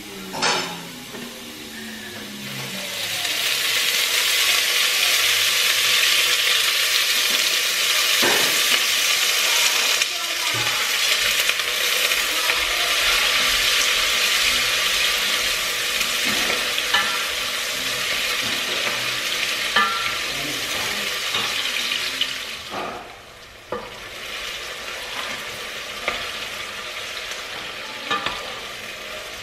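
Food sizzling in hot oil in a stainless steel pot while it is stirred with a wooden spoon, with occasional knocks of the spoon against the pot. The sizzle swells a few seconds in and falls off sharply a little over twenty seconds in, continuing more quietly after that.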